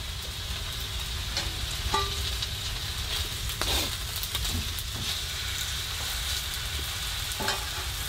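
Steak sizzling in a fry pan on a wood stove: a steady sizzle with a few light clicks now and then.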